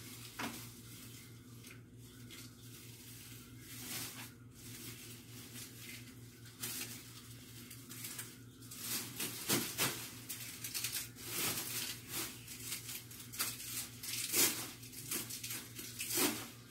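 Soft, irregular crackling and rustling, thicker in the second half, over a steady low hum.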